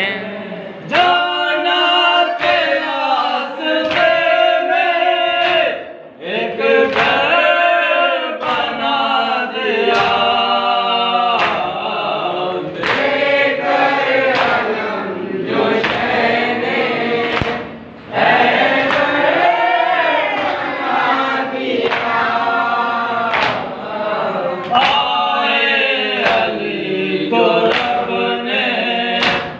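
A group of men chanting a nauha, a Shia lament, in unison without instruments. A steady thump about once a second comes from hands beating on chests (matam).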